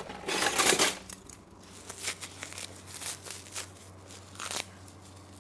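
Plastic wrapping around a block of Parmigiano crinkling and rustling as it is handled and opened. The loudest burst comes near the start, followed by a few light clicks and short rustles over a steady low hum.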